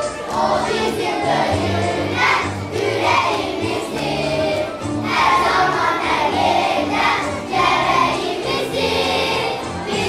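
Children's choir singing a song in unison over instrumental accompaniment with held bass notes.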